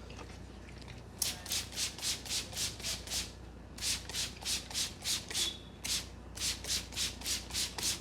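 Hands rubbing briskly over hair and scalp in a head massage: quick, even, hissy strokes at about four a second, starting about a second in and coming in three runs with two short breaks.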